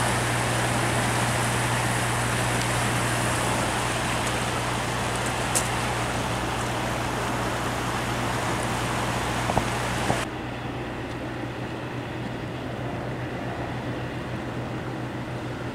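Churning water rushing from a power plant's discharge outlet, a steady rushing noise with a low steady hum under it. About ten seconds in it cuts abruptly to a quieter, softer water sound with the hum still there.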